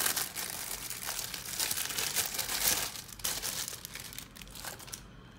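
Packaging crinkling and tearing as it is pulled open by hand: a dense run of crinkling that thins out after about three seconds and stops near the end.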